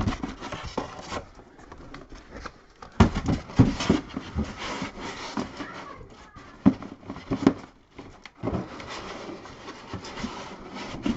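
Handling noise: rustling and scraping, with irregular knocks as things are moved about in and around a box. The loudest knocks come about three to four seconds in.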